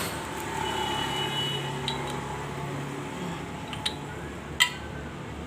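A few light metallic clicks and one sharper clink about four and a half seconds in, from engine parts being handled, over steady background hiss and hum.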